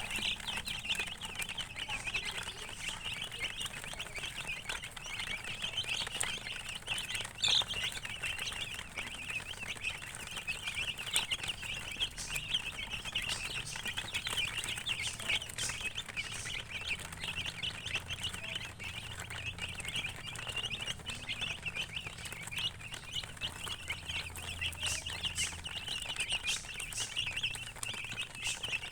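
Many baby chicks peeping together in a dense, unbroken chorus of short, high chirps, with one sharper, louder peep about seven seconds in.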